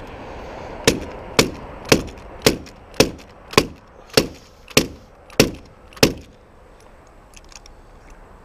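Ten sharp knocks, about two a second, as a jammed Bostitch coil nailer is beaten to free a nail wedged in its driver.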